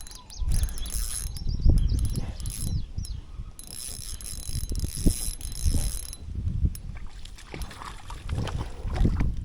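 Fishing reel being cranked to retrieve a lure, a low mechanical whirring and clicking, with wind buffeting the microphone in irregular gusts.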